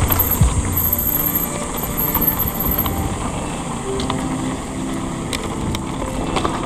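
Continuous rumble of a mountain bike rolling over a dirt trail, with scattered clicks and high-pitched chirping in the background.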